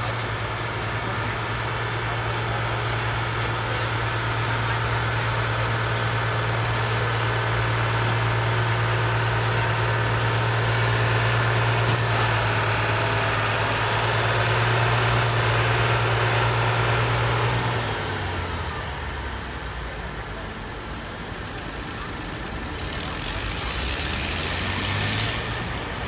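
Farm tractor's diesel engine running flat out under load as it pulls a weight-transfer sled, a steady drone. About eighteen seconds in the pitch drops as the engine slows and the pull ends, then it runs at lower speed, picking up briefly near the end.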